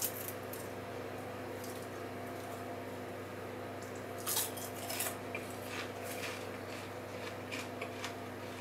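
A steady low hum, with a few crisp, light clicks and crackles scattered over it, a cluster about four to five seconds in and a few more near the end.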